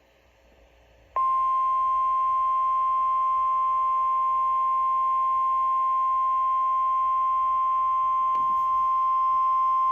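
NOAA Weather Radio 1050 Hz warning alarm tone: one loud, steady, unbroken beep starting about a second in and holding for roughly nine seconds, the alert signal that announces a severe thunderstorm warning.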